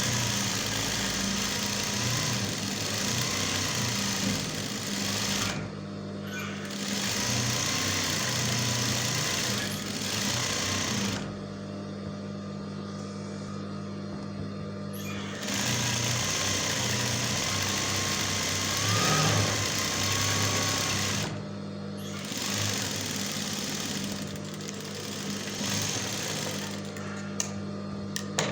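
Electric sewing machine stitching in about four runs of several seconds each, stopping briefly between them, with a steady low hum underneath.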